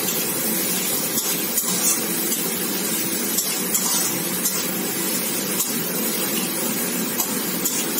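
Chopped onions sizzling as they fry in oil in a karai, stirred with a spatula that now and then scrapes or taps against the pan.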